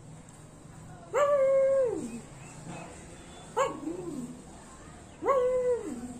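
A pug gives three drawn-out, howling barks. Each holds one pitch and then drops away, and the middle one is short. They are the pug's challenge calls to the bigger dogs in the street below.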